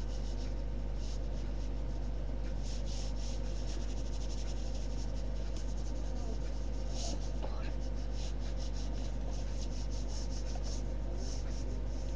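Pen drawing on paper: many quick, short scratching strokes as an outline is sketched, over a steady low electrical hum.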